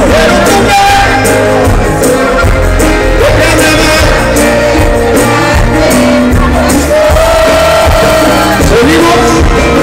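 Live norteño band music played loud through a stadium PA: button accordion melody over guitar, congas and drum kit with a steady beat, with singing voices.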